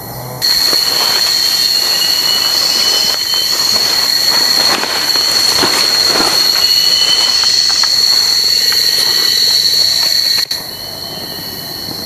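Cicadas droning in one steady, high-pitched note, with soft rustling and footsteps through undergrowth beneath it. The drone starts about half a second in and cuts off suddenly near the end.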